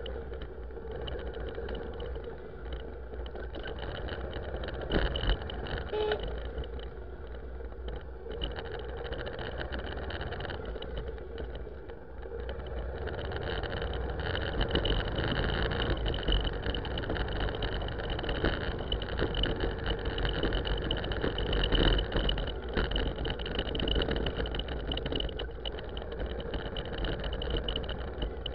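A vehicle's engine running steadily with road noise as it drives along a wet lane, over a constant high whine. It gets louder about 13 seconds in.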